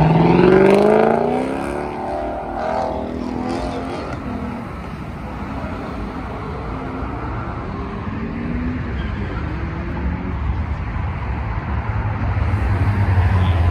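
Cars with loud aftermarket exhausts accelerating away. At the start one engine revs hard, its pitch rising steeply, and then fades with a few more rising shifts. Near the end a deep, low exhaust drone grows louder as another car approaches.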